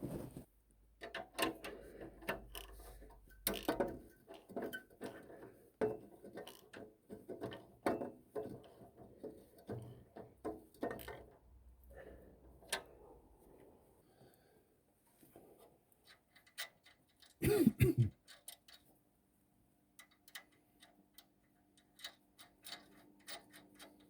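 Hand tools working on metal: irregular clicks and knocks with quick runs of ratchet-like ticking, and one louder brief noise about 17 seconds in.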